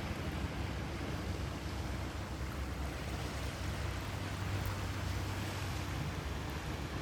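Steady rushing of wind and water with a low drone underneath, the even background noise of a boat out on the water.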